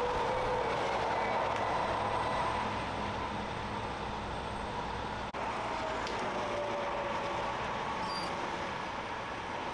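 Heavy wrecker's diesel engine running steadily under a rumbling noise, with a faint whine drifting in pitch. The sound drops out for an instant about five seconds in.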